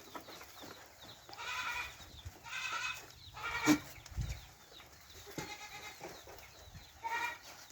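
Goats bleating, about four short separate calls, with a sharp knock about halfway through.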